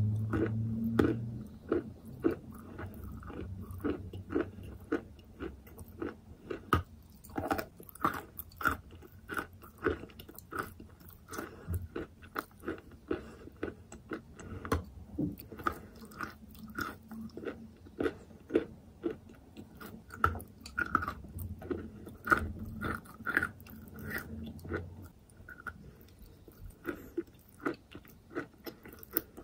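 Close-up chewing and biting of wet chalk: soft crunches and wet mouth clicks, several a second, coming irregularly.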